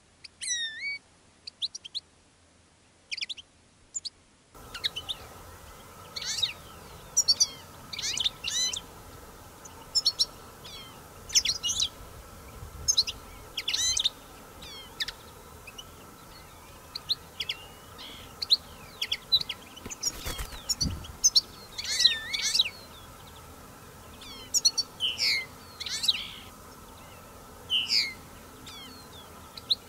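European goldfinches and common linnets calling: many short chirps and twitters, coming in irregular clusters. A faint steady background hum sets in about four seconds in.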